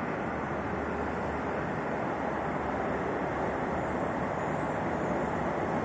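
Steady rumble and rushing hiss inside a moving Roosevelt Island Tramway aerial cable car cabin as it travels along its cables.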